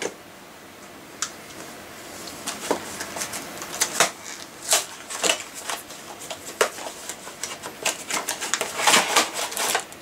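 A small cardboard box of bike parts being handled and opened: scattered clicks, taps and rustles, beginning about two seconds in and coming quicker near the end.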